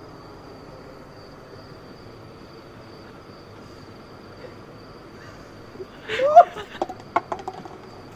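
A faint steady background hum with a thin high whine, then about six seconds in a short, loud rising cry followed by a quick run of sharp knocks.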